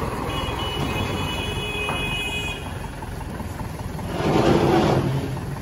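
Kubota L4508DI 45 hp diesel tractor engine running as the tractor is driven up onto a truck. A thin high whine sounds for about two seconds early on, and the noise grows louder about four seconds in.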